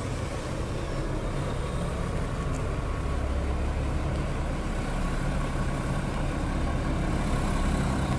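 Mercedes-Benz OH-1525 coach's rear-mounted diesel engine running at low speed as the bus creeps across a yard, a steady low rumble that grows a little louder.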